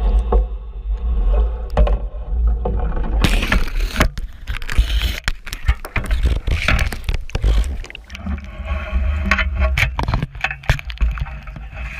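A metal clam dredge hauled up from the seabed: first a low, muffled underwater hum, then about three seconds in it breaks the surface with a sudden rush of splashing and water pouring off. After that come knocks and clatter as the steel frame and ropes are handled on deck.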